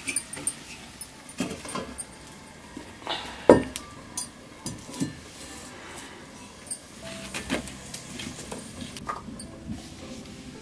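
Metal cookware knocking and clinking as steel plate lids and pans are handled and set down on a mud stove. There are scattered knocks, with the loudest about three and a half seconds in.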